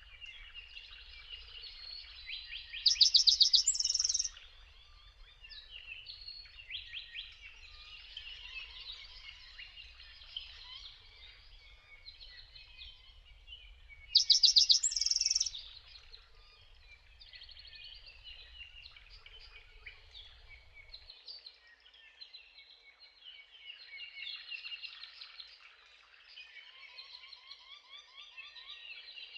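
Chorus of songbirds singing and chirping, with one nearby bird singing the same loud, rapid trilled phrase twice, about three seconds in and again about fourteen seconds in.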